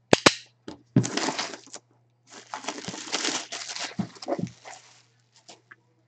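Shrink-wrapped cardboard box being handled and turned over: irregular rustling of plastic wrap and scraping of cardboard, with two sharp clicks at the start.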